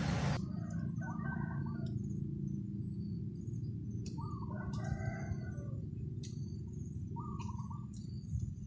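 Birds calling: three short runs of calls, about a second, about five seconds and near the end, with brief high chirps between them, over a steady low hum.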